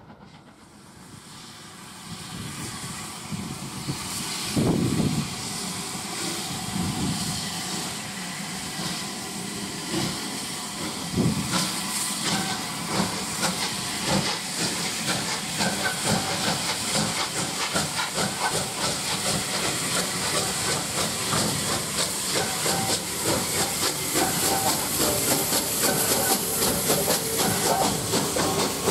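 Bulleid 'West Country' class three-cylinder steam locomotive 34007 'Wadebridge' getting under way and drawing closer: a loud steady hiss of steam with slow, heavy chuffs a few seconds in, which grow quicker as the engine comes by.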